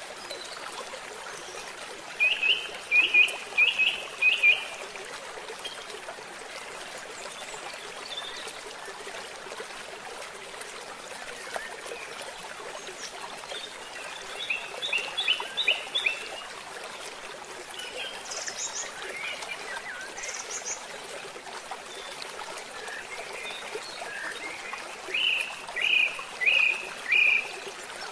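Water pouring from a culvert pipe into a channel, a steady rushing. Over it a bird calls in quick runs of four or five loud chirps, three times: about two seconds in, midway, and near the end, with a few fainter high notes in between.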